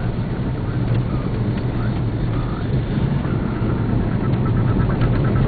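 Car driving along a road, heard from inside the cabin: a steady low engine and road drone, with a quick run of light ticks near the end.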